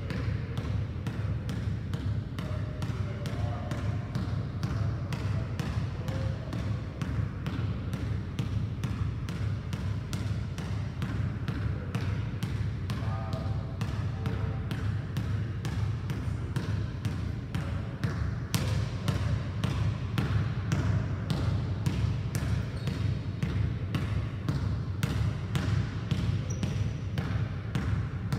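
Basketball dribbled steadily on a hardwood gym floor, a quick even run of bounces at about two to three a second.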